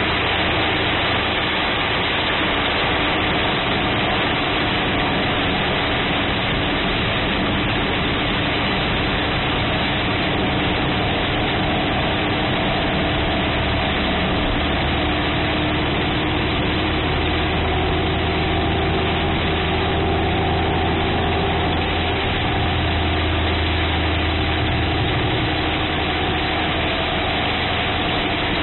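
Torrential rain beating on a car's roof and windshield, heard from inside the car as a loud, steady, dense hiss, with the car's engine idling as a low hum underneath.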